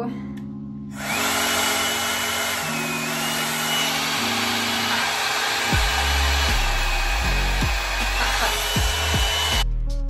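Plavogue One-Step hot-air brush dryer switched on about a second in, running with a steady rush of air and a high motor whine, then switched off suddenly shortly before the end. Background music with a bass beat plays underneath, heavier from about halfway.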